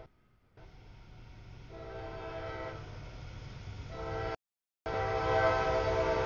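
CSX freight locomotive sounding its air horn, a chord of several steady notes in long blasts, growing louder as it nears the grade crossing, over the low rumble of the train. The audio drops out completely for about half a second partway through.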